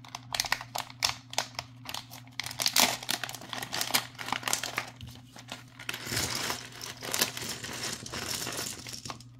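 Plastic bag of acrylic beads crinkling and rustling as it is handled and opened, in irregular crackles that are densest in the second half.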